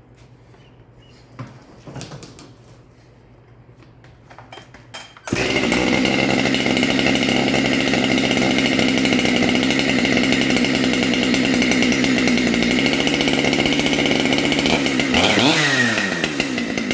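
Husqvarna 592 XP two-stroke chainsaw being pull-started on its new recoil starter pulley. After a couple of quieter pulls it fires about five seconds in and runs steadily and loud, its speed changing briefly near the end. The starter now engages and the saw starts.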